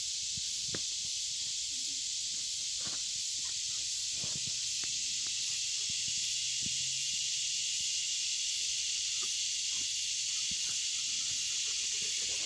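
Steady high-pitched insect chorus, with scattered faint rustles and snaps as a German Shepherd and a kitten move about in dry leaves and twigs.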